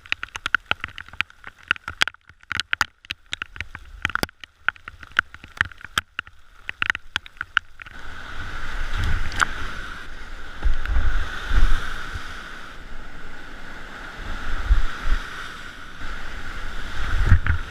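Kayak in whitewater river rapids: for about the first eight seconds there are many sharp, irregular splashes and ticks of water, then a steady rush of whitewater with low, uneven thumps.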